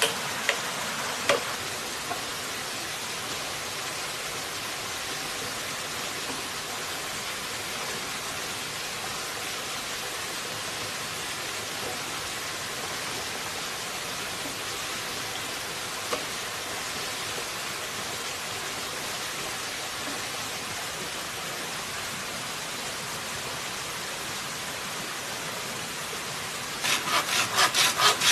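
A steady rushing hiss with a few sharp knocks of bamboo pieces in the first couple of seconds. Near the end a handsaw starts cutting a green bamboo pole in quick back-and-forth strokes, the loudest sound here.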